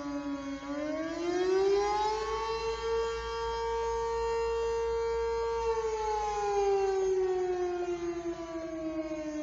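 Outdoor civil defense tornado siren sounding a steady wail during its weekly test: the tone rises over about two seconds, holds high for about three, then slowly falls back to a lower pitch near the end.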